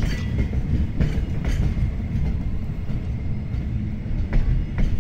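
Container freight train wagons rolling past at close range: a steady heavy rumble from the wheels on the rails, with a few sharp clacks as wheels cross rail joints.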